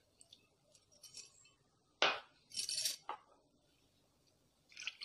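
A ceramic cup and a spoon clinking against a steel mixing bowl as milk is poured in: one sharp clink about two seconds in, then a couple of short scraping sounds and a fainter one near the end.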